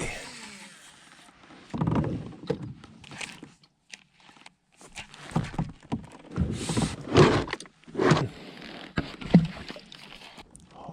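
Irregular knocks, bumps and rustling of gear being handled on a fishing kayak, in several short bursts that come thicker in the second half.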